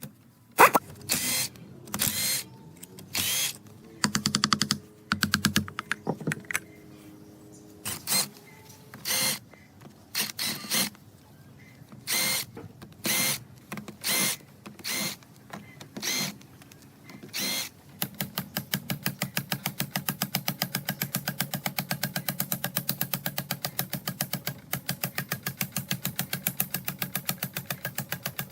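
A power tool run in short bursts, roughly one a second, each with a fast rattling pulse. For the last ten seconds or so it runs continuously with a rapid, even ticking.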